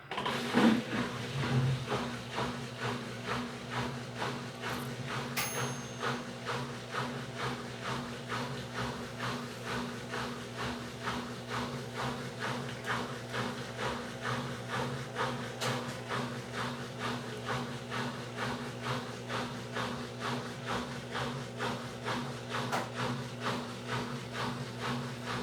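Midea 12 kg washing machine running a wash cycle: a steady motor hum under a regular swishing rhythm of about two strokes a second.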